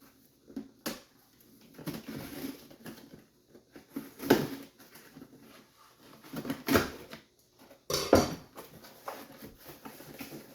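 Package being opened by hand: irregular rustling and crinkling of packaging with several sharp knocks and clicks.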